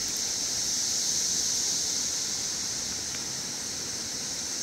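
Steady high-pitched hiss of outdoor ambience at a wooded creek, swelling slightly about a second in and easing again.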